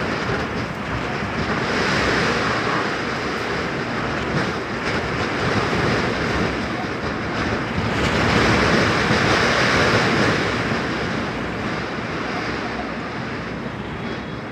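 Steady rushing noise of a tropical storm, wind and rain, swelling about two seconds in and louder again from about eight seconds in.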